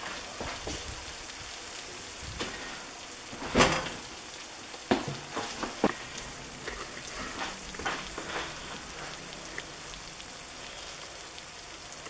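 A freshly broiled spaghetti and Swiss cheese casserole sizzling in its glass baking dish: a steady hiss, with a few short knocks, the loudest about three and a half seconds in.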